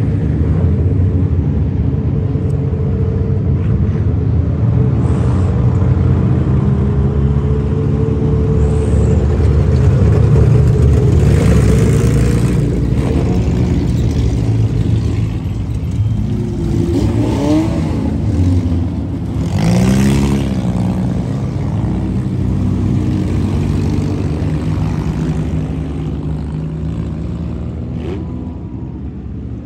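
Dirt-track race car engines running hard as the field laps the oval, with cars passing close in rising and falling pitch sweeps about halfway through. The engine noise eases off near the end as the cars slow.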